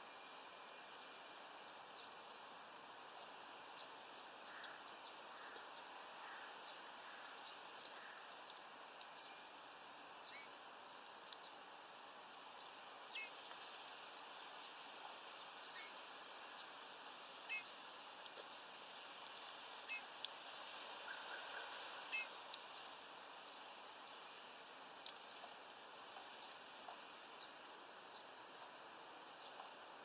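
Small birds chirping faintly: many short, high chirps repeating over a steady hiss of background noise, with a few sharp clicks, the loudest about eight and twenty seconds in.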